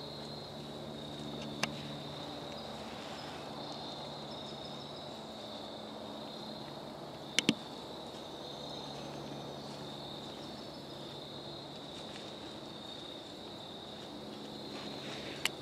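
A steady high-pitched chorus of crickets and other insects in autumn woods, with a faint low hum at the start and again later. A few sharp clicks cut through; the loudest is a quick double click about halfway.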